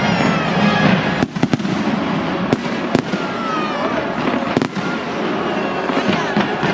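Fireworks going off: a quick cluster of sharp bangs about a second in, two more a little later and one near the end, over music and a steady din.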